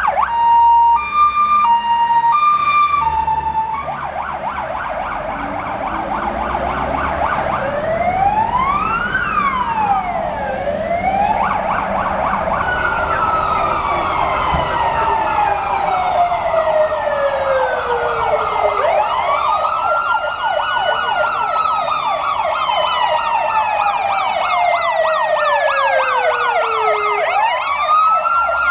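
Sirens of fire-brigade emergency vehicles on a call. For the first four seconds a two-tone hi-lo siren alternates over a fast electronic yelp. From about eight seconds in, slow rising and falling wails from further vehicles overlap the yelp, with a new wail starting near the end.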